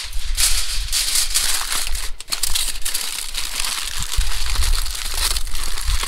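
Aluminium foil crinkling and crackling as it is folded and wrapped around a food packet, a dense run of crackles with a low rumble underneath.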